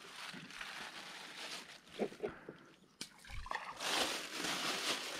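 Handling noise in a small wooden boat: water sloshing, a few knocks, then a plastic bag rustling loudly as hands dig into it near the end.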